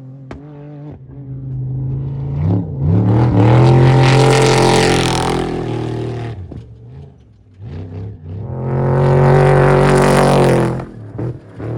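Two off-road race vehicles pass one after the other at speed, engines revving hard. Each swells to loud and fades away over three to four seconds, with the engine pitch swinging as it goes by; the first arrives about two seconds in and the second about eight seconds in.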